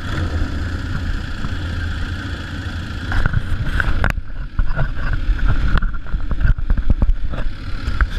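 Several motorcycle engines running steadily at low revs in a team display formation. From about halfway, sharp knocks and uneven rumbles join in as riders climb onto the bikes.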